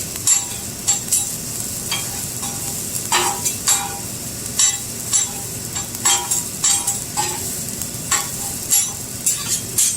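Food frying on a hot flat-top griddle, a steady sizzle, with a metal spatula repeatedly scraping and clinking against the steel at an irregular pace.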